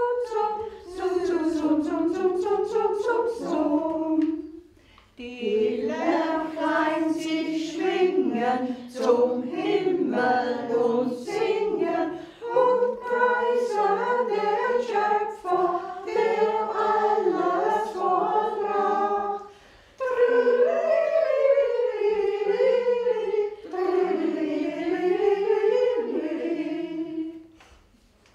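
Group of elderly women singing an old German song together, unaccompanied, in four long phrases with short pauses for breath between them.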